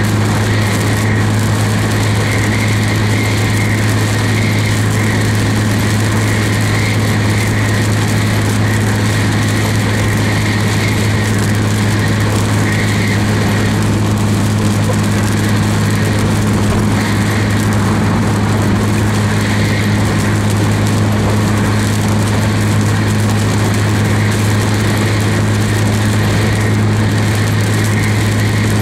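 Steady drone of a vehicle driving at constant speed, heard from inside the cabin: an unchanging low engine hum over the hiss of tyres on a wet road.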